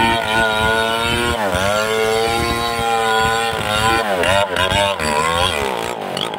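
Two-stroke chainsaw running near full throttle while cutting into a large trembesi (rain tree) trunk. Its pitch sags about a second and a half in as the chain loads up in the wood, then recovers. Near the end the revs dip and pick up several times, then begin to fall away.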